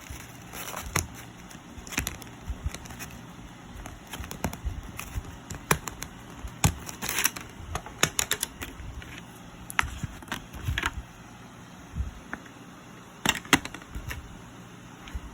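Packaging being handled and opened by hand: irregular clicks, taps and crinkles.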